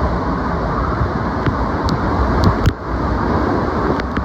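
Hurricane eye-wall wind blowing loud and steady off the water with driven rain, buffeting the microphone into a heavy low rumble. A few sharp ticks cut through it, and it eases briefly about two and a half seconds in.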